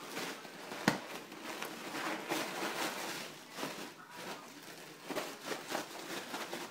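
Scattered knocks, taps and rustling of a toddler handling toys and objects, with one sharp knock about a second in.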